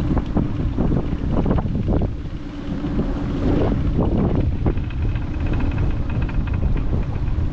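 Strong wind buffeting the microphone on an open inflatable boat, with choppy water lapping at the hull and a steady low hum underneath.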